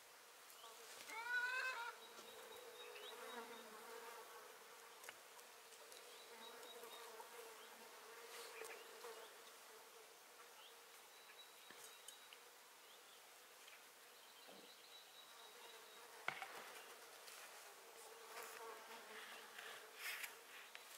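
Faint insect buzzing: a steady, slightly wavering hum. About a second in, a short call rises in pitch, and a sharp knock comes about sixteen seconds in, with a few lighter clicks.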